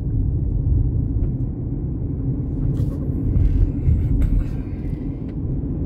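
Car driving: a steady low road rumble, with a few faint clicks around the middle.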